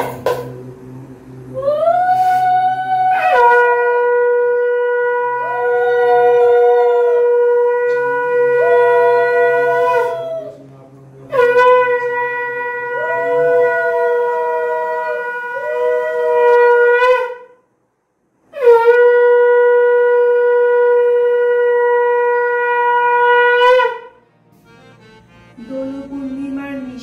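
Conch shell (shankha) blown in three long, steady blasts, each several seconds long with a short break between. A second, higher tone comes and goes over the first two blasts.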